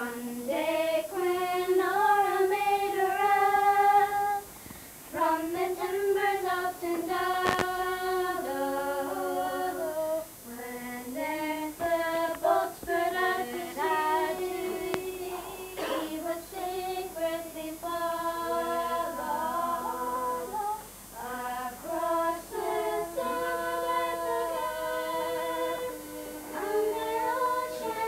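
A group of girls singing together unaccompanied, a song in short phrases with held notes and brief pauses for breath.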